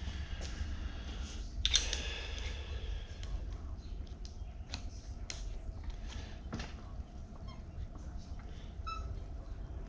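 Scattered light clicks and handling noises of small parts and hand tools, with a louder scraping rustle about two seconds in, over a steady low hum.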